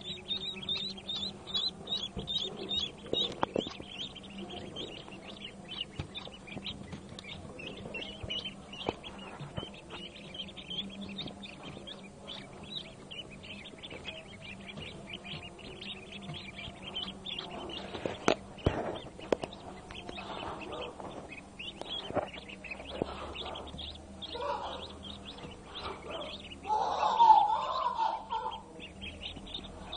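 A brood of newly hatched Pekin and hybrid ducklings peeping: many rapid, high chirps overlapping throughout, with one louder, lower sound near the end.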